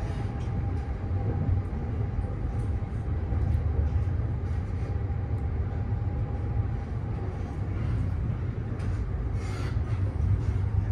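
Train running at speed, heard from inside a passenger carriage: a steady low rumble of wheels on track. A faint steady whine fades out about seven seconds in, and there are a couple of short hisses near the end.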